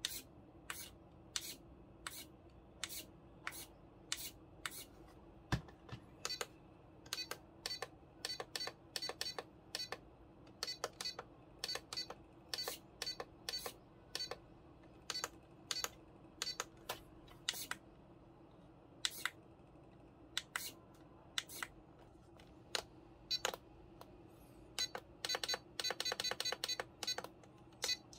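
Menu buttons on a RadioLink RC6GS V3 transmitter pressed over and over, each press a short beeping click, spaced irregularly with quick runs of presses and a fast burst near the end.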